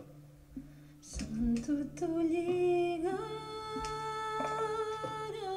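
Live music: a few soft clicks, then about a second in a melody of long held notes begins, stepping up twice and dropping near the end, over a low pulsing drone.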